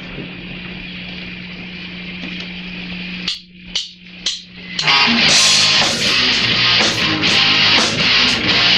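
Live rock band: a held, droning guitar chord, then three short stabs with silence between them, then the full band comes in with guitar and drums, cymbals striking about twice a second.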